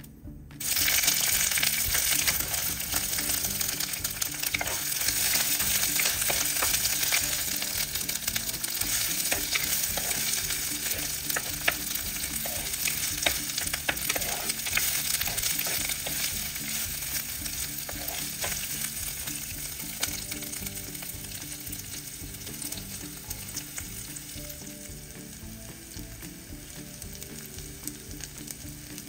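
Sliced onions dropped into hot oil in an earthenware clay pot, hitting it with a sudden loud sizzle about a second in, then frying with a dense crackle as they are stirred. The sizzle slowly dies down.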